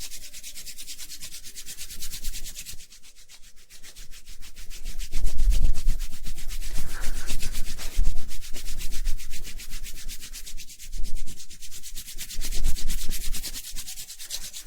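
Hands rubbing briskly together close to the microphone to warm them for a massage, a fast steady swishing. It grows louder from about five seconds in, with deep muffled bumps from the hands pressing near the mic.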